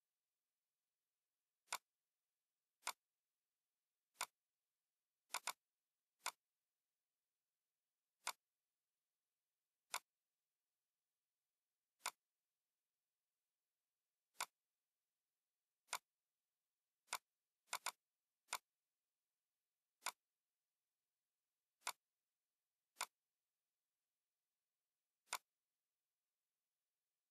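Computer mouse clicks: about nineteen single sharp clicks spaced one to two seconds apart, including a couple of quick double-clicks.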